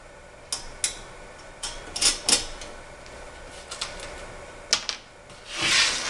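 Scattered light clicks and taps of bolts and nuts being started by hand on the galvanized steel adapter's flange against the blower housing, followed near the end by a louder scraping rustle.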